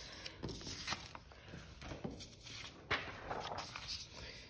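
Sheets of paper rustling and sliding against one another as they are shuffled on a desk, with a few soft taps.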